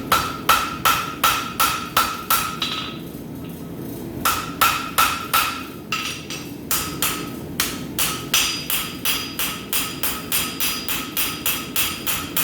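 Rounding hammer striking hot steel bar on an anvil, drawing out the metal: a run of ringing blows, about two to three a second. The blows break off briefly about three seconds in, then pick up again and come quicker after about six seconds.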